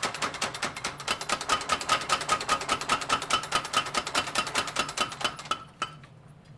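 Mechanical power hammer pounding red-hot steel in rapid, evenly spaced blows, each with a metallic ring. This is the forge-welding (hizukuri) stage of laminating knife steel. The hammering stops near the end, with one last blow.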